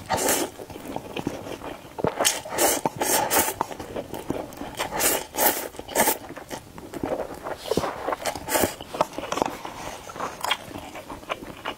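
Slurping spicy instant noodles from a cup with chopsticks: a run of quick, irregular slurps, with chewing between mouthfuls.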